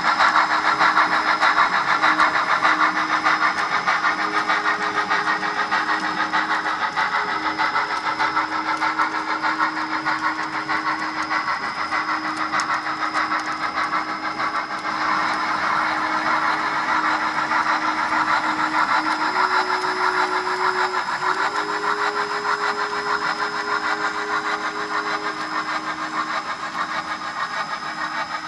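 Model train running on the layout: the small electric motor of a Rio Grande model steam locomotive humming while its wheels and the freight cars' wheels rattle steadily over the track. The hum shifts pitch for a few seconds about two-thirds of the way through.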